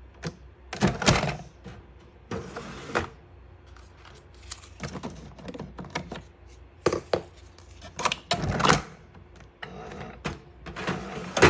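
A scattering of irregular knocks, thumps and brief rustling noises, as of things being handled and set down, over a low steady hum.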